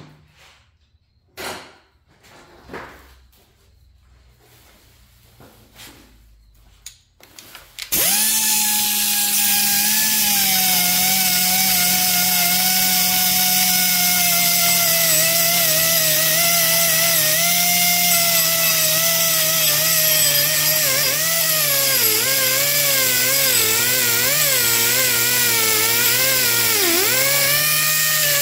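A few knocks and handling clatter, then about eight seconds in an air-powered whiz-wheel grinder starts and runs loud, a high whine over a hiss. It is deburring the cut end of a steel steering column tube. Its pitch sags slowly as the air runs down, the air compressor having been left off, and it wavers and dips near the end.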